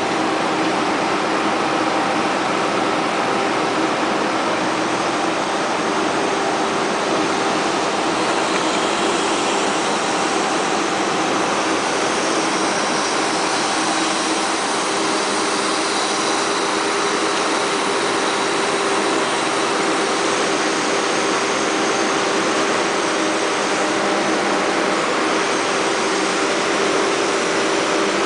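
Excavator engine running steadily under a continuous machine hum, with no sudden knocks or changes.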